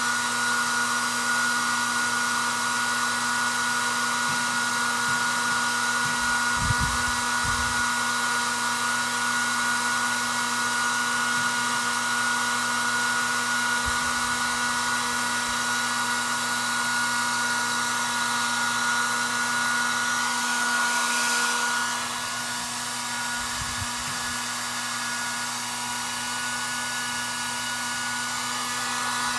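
A small electric motor runs steadily with a whirring hum and hiss. About 22 seconds in, its tone changes and it gets a little quieter.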